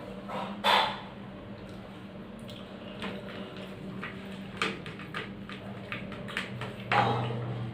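Close-up eating sounds of rice and fried fish eaten by hand: wet chewing, lip smacks and fingers squishing rice on the plate, as many short clicks over a steady low hum. Two louder, noisier mouthfuls stand out, just under a second in and about seven seconds in.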